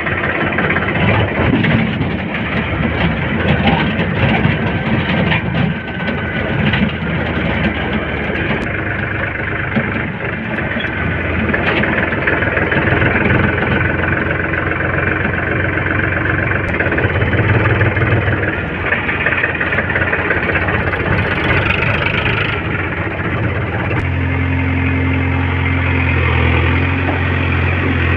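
JCB 3DX backhoe loader's diesel engine running under load as it digs and loads mud, rough and rising and falling in pitch. About four seconds before the end it settles into a steady drone.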